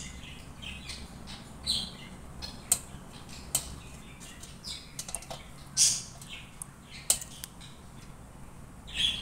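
Occasional short high bird chirps, with a few sharp light clicks of a steel knife blade against a brass plate as soft ice apple (palmyra fruit) flesh is sliced.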